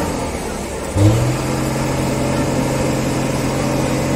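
Diesel engine of a Hino 500 concrete mixer truck running; its note dips at the start, then about a second in it revs up briefly and settles back to a steady run.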